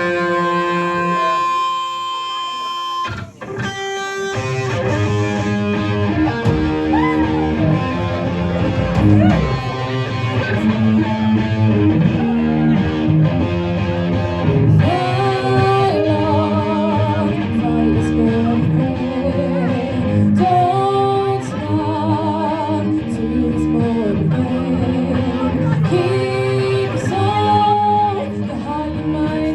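Live rock band playing an instrumental intro on electric guitar, bass and drums. It opens with a held guitar chord; after a short break about three seconds in, the full band comes in and keeps playing.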